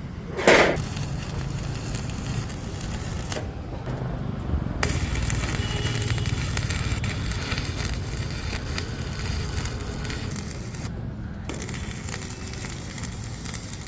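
Arc welding on iron: a dense, steady crackle and sizzle of the arc, breaking off briefly twice as the arc stops and restarts. A loud, short burst of noise comes about half a second in.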